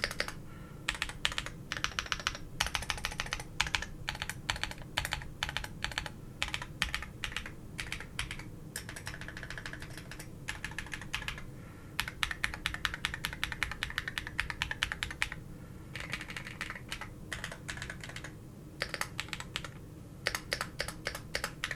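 Typing on a mechanical keyboard fitted with Waizowl Christmas keycaps, on a leaf-spring-mounted board with foam padding underneath: quick runs of clacking keystrokes with short pauses between bursts.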